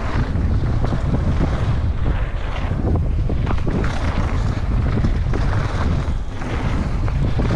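Wind buffeting the microphone of a camera on a downhill mountain bike at speed, with the tyres rolling over dirt and repeated knocks and rattles from the bike over bumps.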